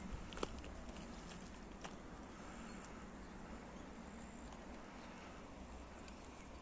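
Quiet outdoor ambience: a low steady rumble under a faint hiss, with a few short sharp clicks in the first two seconds.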